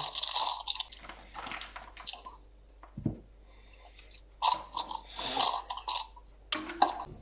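Irregular wet squishes and light clatters of food being worked in a bowl as an egg goes into chicken pieces in their marinade.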